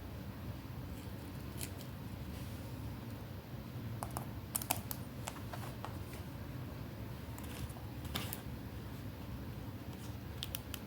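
Scattered light clicks and taps from hands handling paper craft pieces, a few at a time, over a steady low hum.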